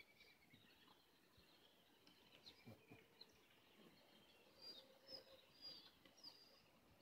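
Near silence with faint, short, high bird chirps, a few of them close together in the second half.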